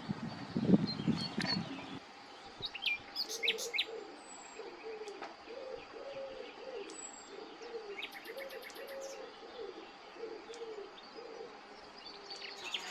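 Wild birds calling: a run of low cooing notes, about two a second, under scattered high chirps and a short trill. A few low knocks come in the first two seconds.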